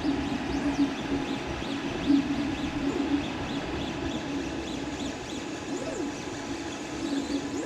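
Creality CR-X 3D printer running a print: its stepper motors whine in short chirps that rise and fall in pitch as the print head moves back and forth, over a steady hum.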